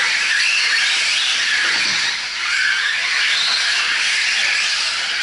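Several 4WD radio-controlled short course trucks racing, their electric motors and drivetrains giving a high whine that rises and falls in pitch as they speed up and slow for the turns.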